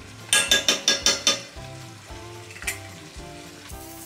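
A small metal spoon clinking sharply against a frying pan, about six quick ringing knocks in the first second and a half and one more near the end, over light background music.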